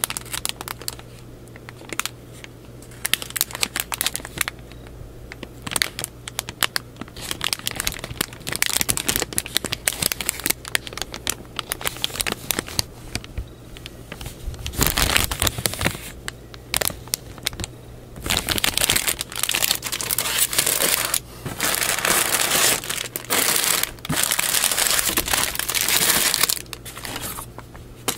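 Clear plastic bags around plastic model kit runners crinkling as they are handled: short crackles and clicks at first, then longer stretches of continuous crinkling in the second half.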